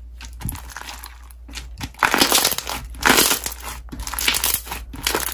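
White slime with pink bits in it being stretched and squeezed by hand, making sticky crackling and popping. Faint at first, it turns louder and denser about two seconds in.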